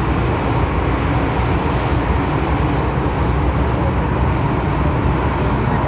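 Steady rumble and rail noise of a moving MTR metro train heard from inside the passenger carriage, with a thin high whine that fades near the end.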